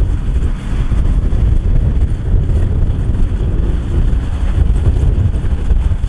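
Kubota DC108X combine harvester running as it works, a steady low rumble with wind buffeting the microphone.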